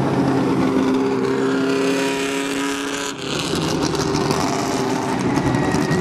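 Vintage MG sports racing car's engine running hard at speed as it goes by, its pitch easing down over the first three seconds, with a sudden change in the sound a little past halfway before the engine noise carries on.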